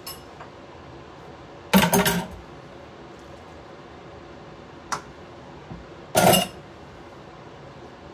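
A spatula knocking and scraping against a stainless steel sauté pan while rice is stirred: a short clatter about two seconds in, a single tap near the middle, and another clatter near the end.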